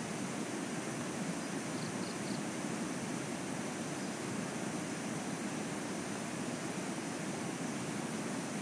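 A steady, even rushing noise, with three faint, quick high chirps about two seconds in.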